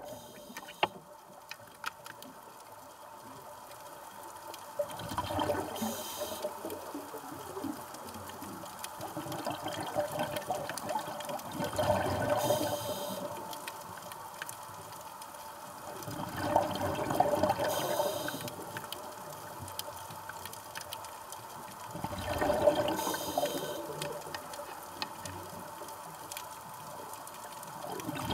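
Scuba diver's regulator breathing underwater: a burst of exhaled bubbles about every five to six seconds, each swelling and fading over a second or two, over a low water hiss.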